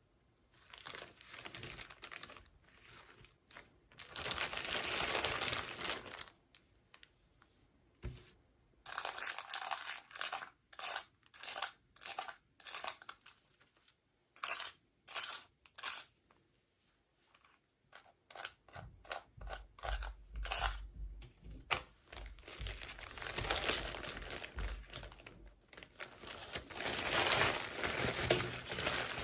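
Packaging being crinkled and torn open by hand: long stretches of crinkling, with a run of short rips near the middle and a few low thumps after.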